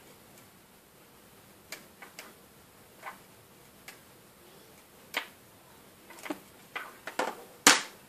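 Irregular small clicks and snaps as rubber bands are worked off the pegs of a clear plastic loom, the bracelet held on a plastic hook tool. The clicks come faster in the second half, and the loudest snap comes just before the end.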